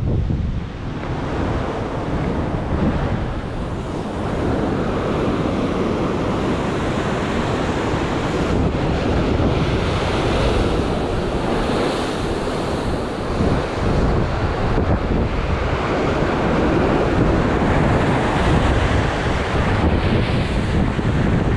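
Sea surf washing and surging, with wind buffeting the microphone.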